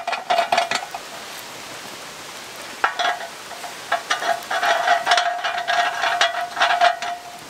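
Metal legs being screwed by hand into the threaded sockets of a Robens three-legged cast iron griddle pan, the threads grating with a thin squeak. It goes in bouts of turning: one that stops about a second in, a short one near three seconds, and a longer one from about four to seven seconds.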